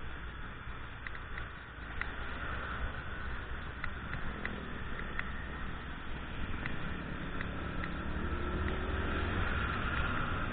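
Yamaha Jupiter Z underbone motorcycle's single-cylinder four-stroke engine running under way, mixed with wind and road noise and light scattered clicks. About seven seconds in, the engine note rises and grows louder as the bike speeds up.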